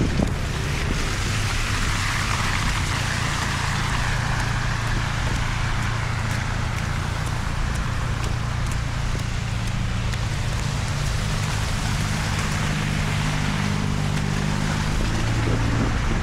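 A vehicle running steadily: low engine hum under a continuous hiss of tyre and road noise.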